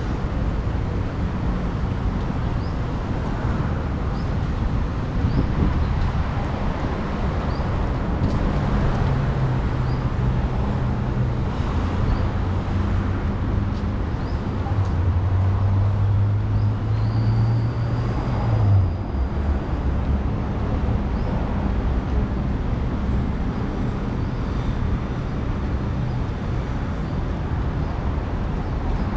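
Street traffic noise with vehicle engines running steadily. One engine hum grows stronger from about halfway through and cuts off abruptly about two-thirds in.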